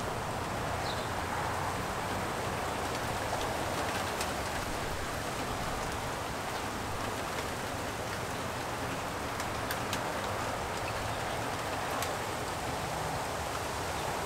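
Light rain falling steadily: an even hiss with a few sharp drop ticks scattered through it.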